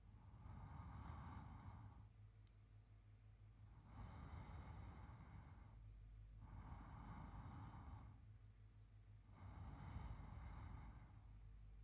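A man's slow, even sleep breathing close to the microphone: faint, airy breaths, about one every two to three seconds.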